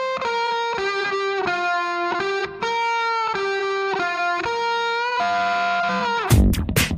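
Music: a solo electric guitar plays a slow melody of long held notes that slide into one another, and a full band with drums comes in near the end.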